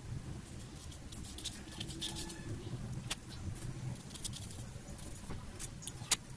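Light clicks and scratches from handling thermocol (polystyrene foam) pieces and a thin metal wire being pushed through a foam block, with one sharper click near the end.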